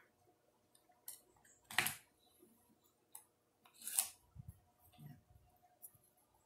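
Quiet handling sounds of painting work: two sharp clicks about two seconds apart, a few faint ticks and two soft low knocks, as brushes and the porcelain cup are picked up and set down.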